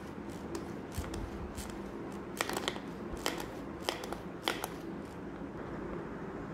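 Pull-cord manual food chopper being pulled again and again, its blades churning chopped fruit and water, with a sharp rattling click at each stroke. The clicks come faster in the middle and thin out near the end.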